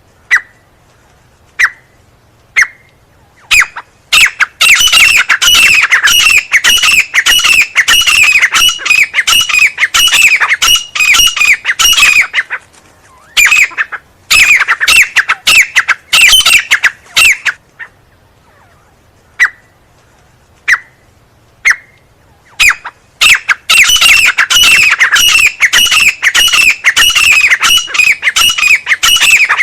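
Grey francolin (teetar) calling loudly: a few single sharp notes at first, then long fast runs of repeated calls, broken twice by short pauses with only scattered single notes before the runs start again.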